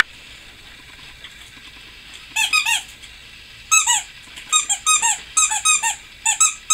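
Squeaky dog toy squeezed repeatedly: a run of short, pitched squeaks, often in quick pairs, starting about two seconds in.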